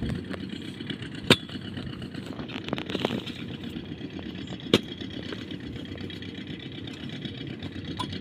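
Kubota M6040SU tractor's diesel engine idling steadily while stuck in mud, with the scrape of a hoe digging around its rear wheel and two sharp knocks, about a second in and again near five seconds.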